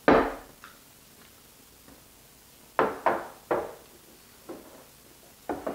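Dull knocks of drink cans against a tabletop: a loud one at the start, three in quick succession about three seconds in, and two more near the end.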